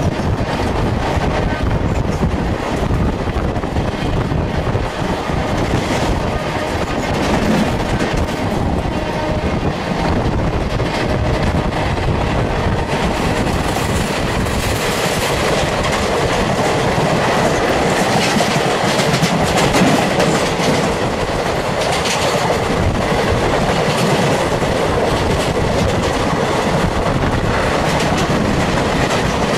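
Indian Railways passenger trains running side by side at speed: a steady rumble of the coaches with wheels clattering over the rail joints, heard close up from a moving train.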